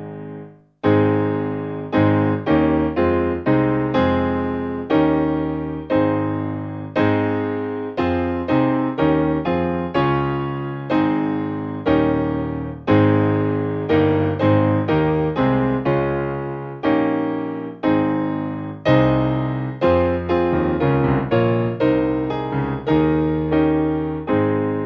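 Background piano music: slow notes and chords struck one after another, each ringing out and fading. The music breaks off briefly about a second in, then starts again.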